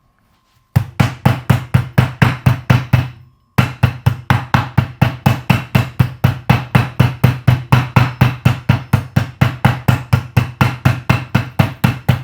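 Meat tenderizer pounding boned chicken leg meat under cling film on a board: rapid, even blows, about four to five a second, with a brief pause about three seconds in.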